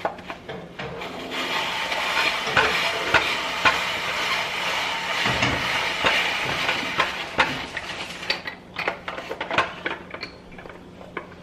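Food sizzling in a hot frying pan while it is stirred, with the utensil clicking and scraping against the pan. The sizzle swells about a second in and dies down near the end, while the clicks go on.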